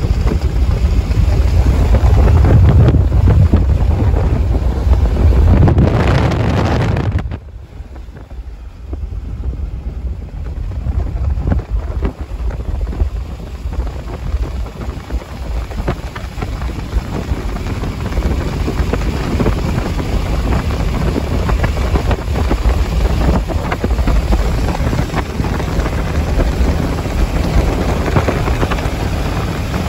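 Wind buffeting the microphone over the road noise of a moving vehicle. The loud, rumbling buffeting drops suddenly about seven seconds in, leaving a steadier, quieter road and wind noise.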